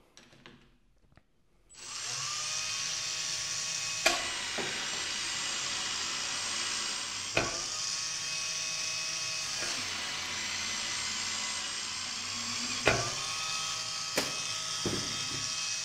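Electric drill, its trigger locked at a steady speed, driving the crank of a Vevor SD-002 cable stripping machine. It starts about 2 s in and runs steadily, with a few sharp clicks along the way.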